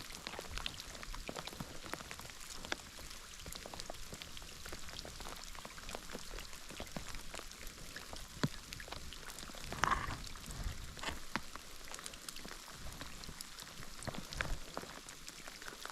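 Rain falling, with many scattered drops tapping close by. There is a brief louder sound about two-thirds of the way through.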